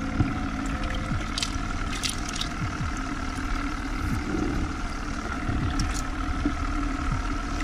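Bait-bucket aerator running steadily with a small motor's hum, pumping air through a clear hose so the water bubbles and gurgles, with a few splashes as a hand moves among the live bait fish.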